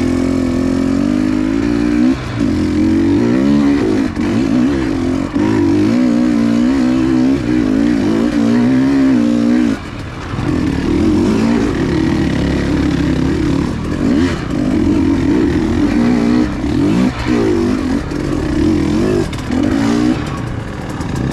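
Dirt bike engine running on a trail under changing throttle. The revs rise and fall as the rider works the throttle, easing off briefly about two seconds in and again, for longer, about ten seconds in.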